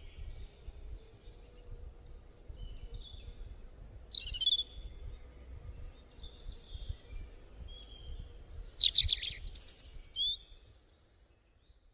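Several wild birds chirping and whistling in short, high notes, with a louder burst of calls about four seconds in and again around nine seconds, over a low outdoor background rumble; the sound fades out near the end.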